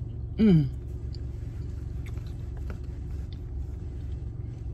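A woman's short, falling "mmm" as she takes a bite of mac and cheese, followed by faint chewing clicks, over a steady low rumble inside the car.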